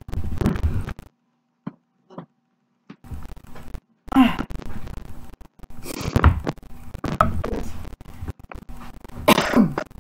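A woman coughing and clearing her throat several times in short, loud bursts, with knocks and shuffling between them.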